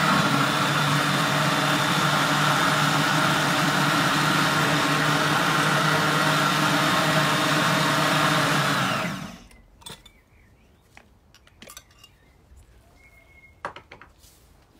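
Countertop blender running steadily at full speed, liquefying a leche de tigre marinade of lime juice with chili and celery, then switched off about nine seconds in. After it, only a few faint clicks.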